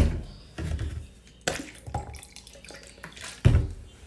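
Liquids from plastic bottles poured and splashing into a cup, with three sharp thumps: at the start, about a second and a half in, and near the end.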